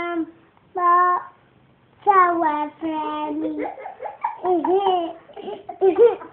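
Young child singing a wordless la-la tune in a high voice: short held notes, a brief pause, then quicker bouncing sing-song babble that turns giggly near the end.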